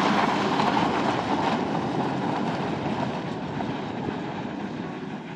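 Chrysler Town & Country minivan driving away over loose volcanic cinders: a steady rumble of tyres on gravel and engine, slowly fading.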